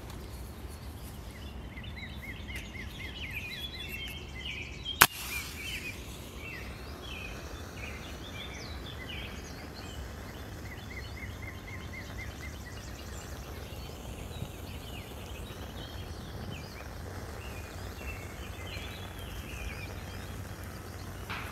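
Wild birds singing and chirping over a steady low outdoor rumble, with one sharp strike about five seconds in, a wooden match struck to light a tinder bundle.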